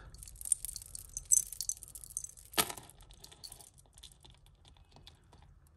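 Metal chain jewellery jingling and clinking as it is handled, with one louder clack about two and a half seconds in, then fewer and fainter clicks.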